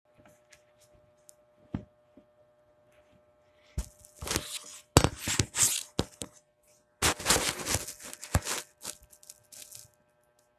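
Phone handling noise: rustling and scraping with sharp clicks as the microphone rubs against skin and fabric, in two spells of a few seconds each, the first starting about four seconds in.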